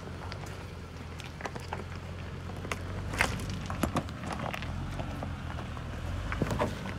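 Toyota 4Runner crawling slowly over a rocky trail: a low, steady engine hum under scattered crunches and sharp clicks of tyres rolling over loose rocks and gravel, the loudest a little past three seconds in and again near the end.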